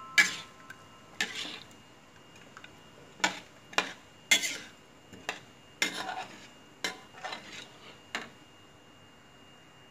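Metal spatula stirring soup in a wok, scraping and clinking against the pan about a dozen times at irregular intervals.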